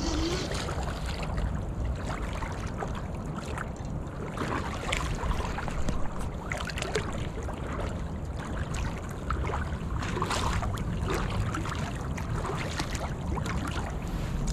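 Steady rush of river water with a low wind rumble on the microphone, broken by scattered short crunches and scrapes from movement on the rocky bank.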